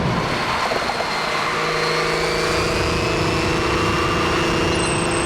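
Car engines running steadily, with a held hum and a faint high whine that rises slowly in pitch.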